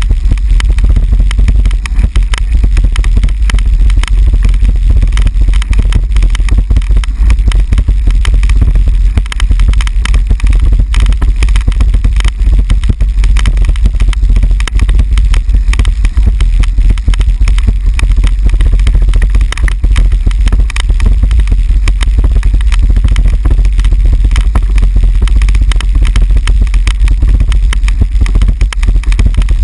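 Bicycle and its handlebar-mounted camera rattling and jolting over cobblestones, a loud unbroken clatter over a deep rumble.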